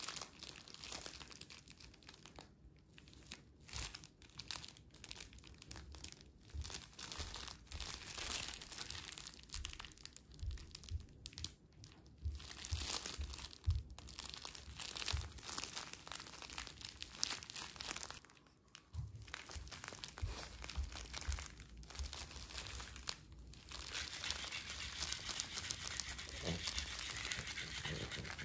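Rustling and crinkling handling noise from a plush fish toy's fabric shell being worked in the hands, with scattered soft knocks, getting busier near the end.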